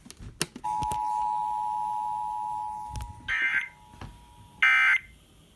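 Emergency Alert System two-tone attention signal: a steady dual-tone alarm held for about four seconds, announcing a tornado warning. Overlapping its end come two short, harsh bursts of digital data tones about a second apart.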